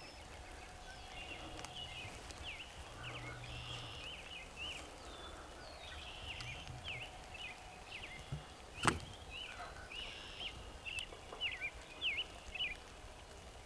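Quiet open-field background with small birds chirping on and off, and one sharp click about two-thirds of the way through.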